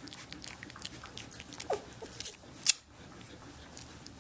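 A 17-day-old Samoyed puppy licking and mouthing fingers: a run of small wet clicks and smacks, with one short falling squeak about a second and a half in and one louder click a little after halfway.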